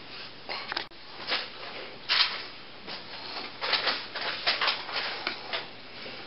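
Scattered short rustles and scrapes, the kind made by hand puppets and props being handled and moved behind a cardboard stage. They come irregularly, busiest about two seconds in and again from about four to five and a half seconds.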